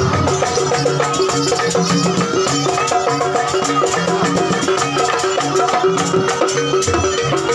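Jaranan ensemble music played live: drums beating a fast steady rhythm under a quick, repeating figure of pitched notes, going without a break.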